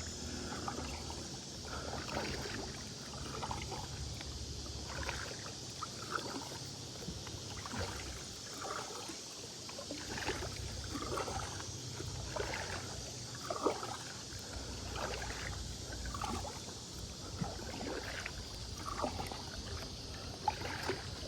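Kayak paddle strokes in river water: soft splashes and drips from the blades, roughly one a second, over a steady high hiss.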